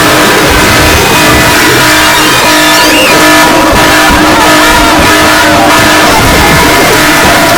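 Emergency alert alarm played at extreme, clipped loudness: several steady tones held together under a harsh wash of distortion noise, without a break.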